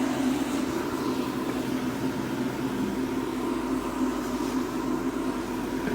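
Steady mechanical hum and whir with a low drone and a fainter high tone, even throughout, with no sudden sounds.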